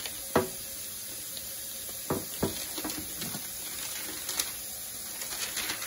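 Pumpkin seeds being tipped from a cloth dish towel onto a parchment-lined baking pan. There are a few soft knocks and paper and cloth rustles over a steady hiss.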